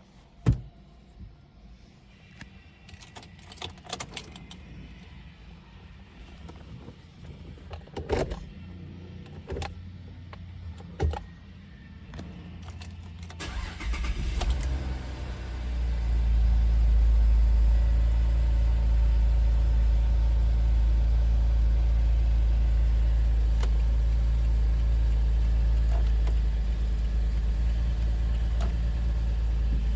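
Holden VE Commodore SIDI V6 being started. After several clicks and knocks in the first half, the starter cranks about 13 seconds in, and the engine catches and settles into a loud, steady idle. The engine has a detected misfire.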